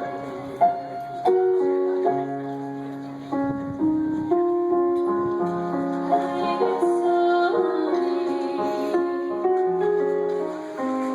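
Instrumental passage of a slow song: piano playing chords under a melody line, without clear singing.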